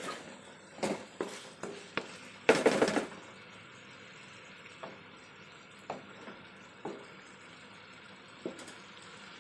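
Spatula stirring pork adobo in a non-stick wok: a few knocks against the pan in the first two seconds and a louder scraping clatter about two and a half seconds in, then only occasional light ticks over a faint steady sizzle from the pan.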